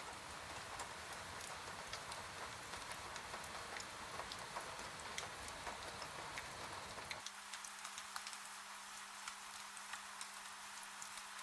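Rain on a window, a steady wash with many single drops ticking against the glass. About seven seconds in, the low rumble under the rain cuts out abruptly, leaving a faint steady hum beneath the drops.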